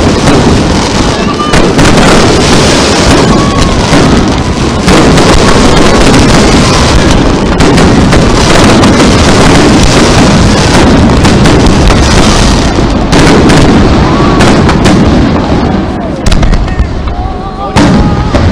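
A dense, loud barrage of fireworks: many shells bursting in rapid, overlapping booms and crackles, with a few whistling glides among them.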